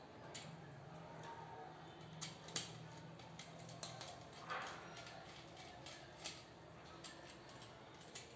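Scattered small clicks and taps as a plastic modular switch board is handled and wires are fixed into its screw terminals with a small screwdriver, the sharpest click about two and a half seconds in. A faint steady low hum runs underneath.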